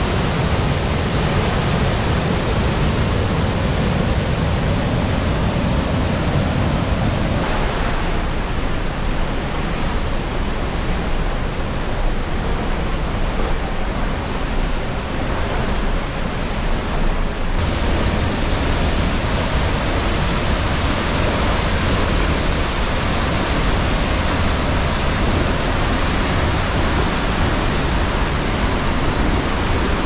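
Loud steady roar of whitewater cascading over granite boulders and of a waterfall, swollen by heavy snowmelt. The roar changes character abruptly twice, about 7 s and 17 s in, as one stretch of falling water gives way to another.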